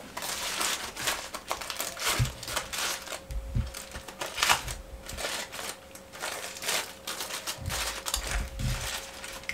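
Aluminium foil crinkling and rustling in irregular bursts as a foil parcel is pulled open with a metal fork and spoon, with light clicks of the utensils against it.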